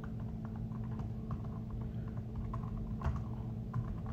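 Typing on a touchscreen tablet's on-screen keyboard: a quick, irregular run of light taps, several a second, over a steady low hum.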